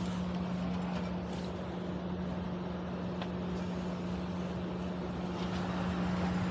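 Steady machine hum with a constant low tone and a hiss, with a few faint clicks.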